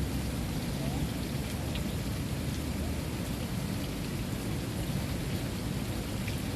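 Water fountain running, a steady rush of falling, splashing water with a low rumble underneath.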